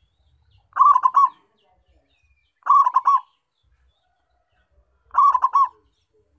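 Zebra dove (local perkutut) cooing: three short phrases of quick rolling notes, each about half a second long and about two seconds apart.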